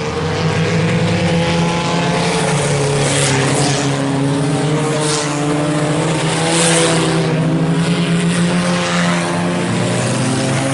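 IMCA Sport Compact race cars running at speed in a pack, several four-cylinder engines sounding at once at steady pitch, with cars rushing past a few times around the middle.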